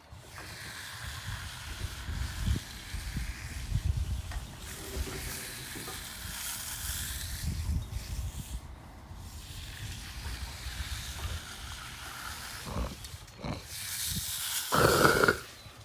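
Low rumble with a hiss that swells and fades. Near the end there is one short, loud throat-clearing snort from a person.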